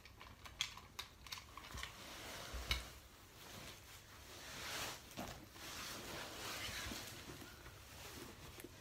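Close handling noises at the microphone: a few sharp taps and clicks in the first three seconds, then several seconds of rustling that swells and fades.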